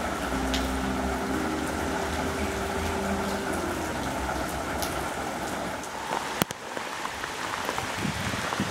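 Heavy rain falling steadily on a waterlogged path, with a sharp click about six and a half seconds in, after which the rain sounds quieter.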